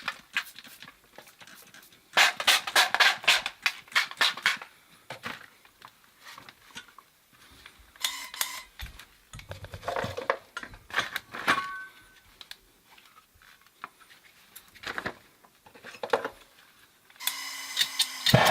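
Metal tools and copper pipe fittings clinking and rattling in clusters as they are handled. Near the end a steady hiss starts: a MAPP gas torch being lit for soldering.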